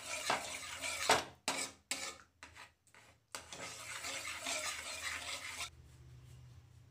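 A slotted steel spoon stirring and scraping cream around a steel kadhai, in a run of short strokes with gaps between them. It goes quiet near the end.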